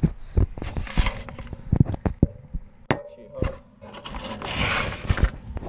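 Irregular knocks and clatter, with a brief scraping hiss about four and a half seconds in.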